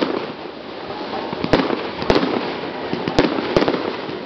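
Fireworks launching and bursting: a continuous crackling hiss with several sharp bangs, some in quick pairs.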